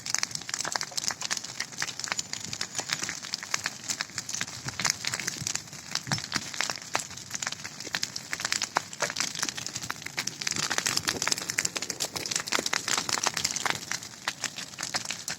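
Large bonfire of brush, branches and vines burning, with dense, irregular crackling and popping over a steady hiss.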